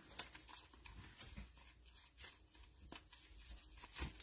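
Faint rustling and light clicks of a stack of glossy football trading cards being flipped through by hands in nitrile gloves, with a slightly louder click about four seconds in.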